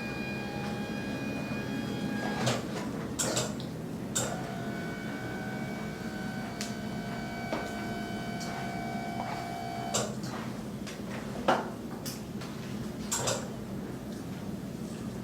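Joints cracking during a chiropractic adjustment: about nine sharp pops at uneven intervals, loudest about three-quarters of the way through, over a steady low hum with a few held tones.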